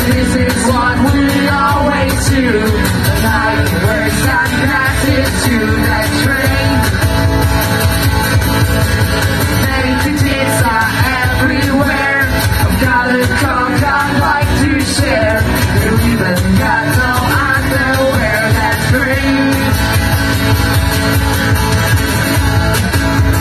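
Live rock band playing a song with a singer, loud and steady throughout.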